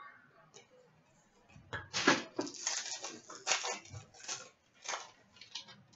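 Hockey trading cards being flicked and slid one past another by hand, a quick uneven run of short swishes and snaps of card stock that starts about a second and a half in.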